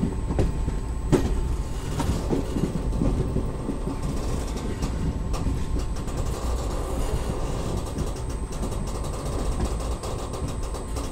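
Passenger train running along the track, heard from aboard one of its coaches: a steady rumble of wheels on rails with scattered sharp clicks and knocks from the wheels.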